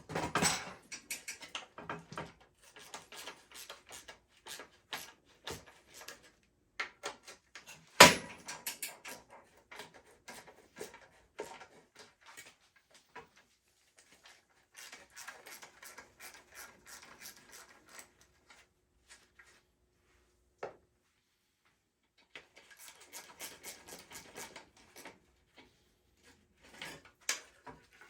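Irregular clicks, clinks and knocks of hand tools and metal motorcycle parts being handled while a Yamaha DT360 is taken apart. The loudest is a single sharp knock about eight seconds in. There are two stretches of dense small clicking and rubbing, in the middle and near the end.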